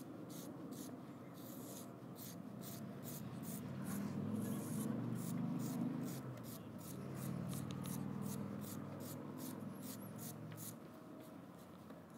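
A hand carving tool scraping through soft clay in short, quick repeated strokes, about three a second, over a low rumble.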